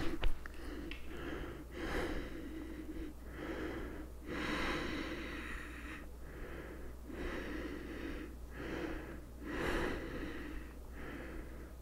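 A woman breathing audibly in and out, steady breaths of about a second each, while holding a yoga plow pose with her legs over her head.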